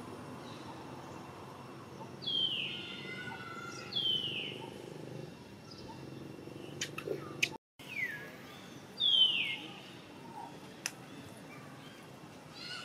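Macaque squealing four times, each a short high-pitched cry that falls in pitch. A few sharp clicks come between the second and third cries.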